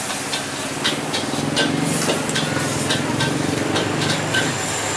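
A motorbike engine passing on the road, its note swelling from about a second in and fading near the end, over a steady hiss, with a few light clinks.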